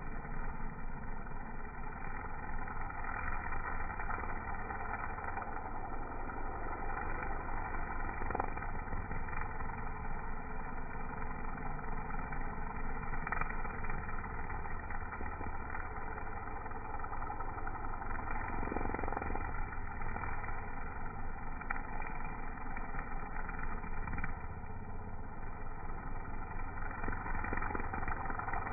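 String trimmer running steadily as its line cuts grass.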